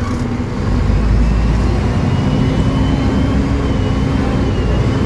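Mercedes-Benz OM906LA six-cylinder diesel of an O500U city bus heard from inside the cabin, getting louder under load about a second in and then running steadily, with a faint high whine above it.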